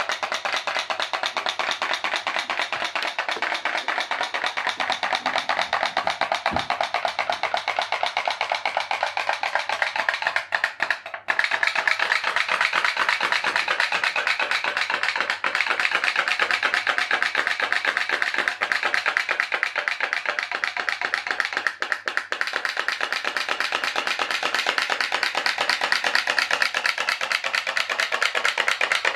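Pop-pop boat's aluminium boiler popping loudly in a rapid, steady rhythm as water flashes to steam and is drawn back in, driving the boat along; it breaks off for a moment about eleven seconds in.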